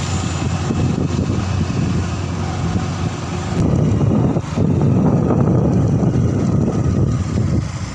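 Motorcycle on the move: engine running steadily under a heavy rush of wind over the microphone, a little louder from about three and a half seconds in.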